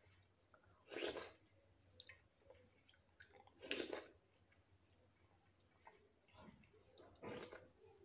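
A person chewing food, quiet and close up, with three short, sharp noisy sounds about three seconds apart.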